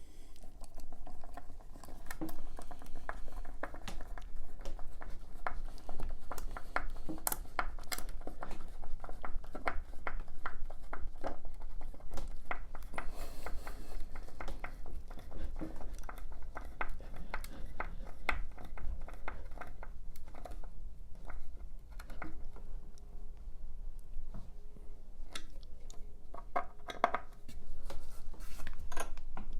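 Crosshead wood screw being driven by hand with a screwdriver through a metal D-ring hanger into a pilot-drilled hole: a long run of irregular small clicks and creaks as the screwdriver turns and is regripped.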